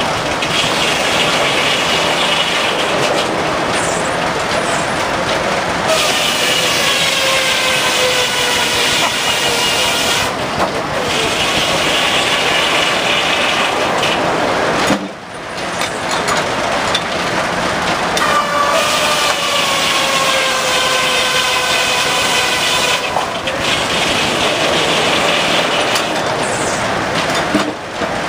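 Steam-driven circular sawmill cutting boards over the mill's steady clatter: the blade whines through several long cuts, its pitch sagging as it bites the wood, with a brief lull about halfway through.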